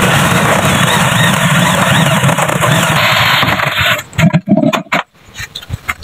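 Electric hand drill running at speed, its bit boring through a plastic bucket lid, with a wavering motor whine. After about four seconds it stops, and a few scattered knocks and clicks follow.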